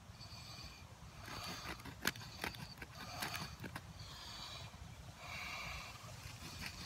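Serrated folding-knife blade sawing back and forth through a small tree-root stick, about five rasping strokes roughly a second apart, with one sharp click about two seconds in.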